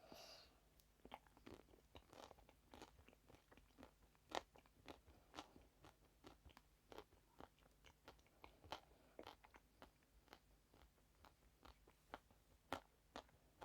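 Quiet, close-miked eating: a person bites and chews something hard and crisp, giving many sharp crunches in an irregular run.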